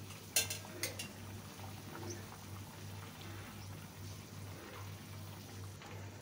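Fish curry simmering in a metal karai with a soft bubbling, and two sharp clinks of a metal spatula against the pan about half a second apart, about half a second in. A steady low hum runs underneath.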